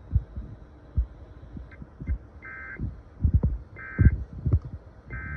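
Three short bursts of EAS end-of-message data tones on a weather radio, the warbling two-pitch SAME code, about 1.3 seconds apart in the second half. They come over irregular low thumps and crackle from a poor radio signal, and the thumps are louder than the tones.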